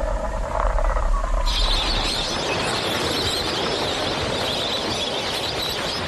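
Outdoor wildlife ambience: a steady, dense high-pitched chorus of calls. It starts abruptly about a second and a half in, replacing a low hum.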